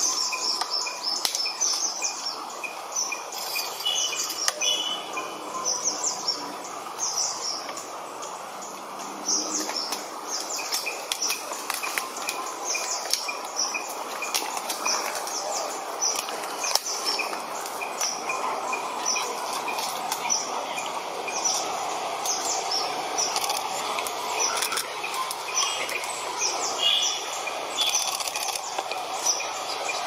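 Rainforest birds chirping: many short, high chirps repeating throughout over a steady background of forest noise.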